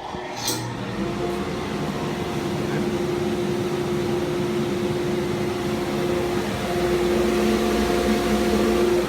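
Workshop dust collector switched on by its remote switch: a click, then the motor and blower spin up within about a second and run with a steady hum and rush of air.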